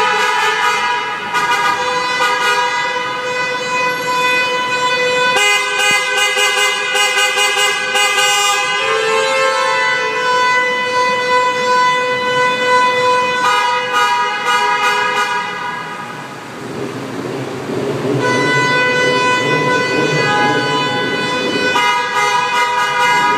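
Many car horns honking at once in a road underpass, in celebration, as long held blasts that overlap one another. The horns ease off briefly about sixteen seconds in, then start up again.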